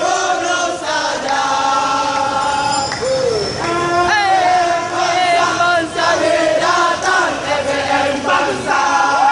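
Football supporters chanting in unison, many voices holding long sung notes of a terrace song.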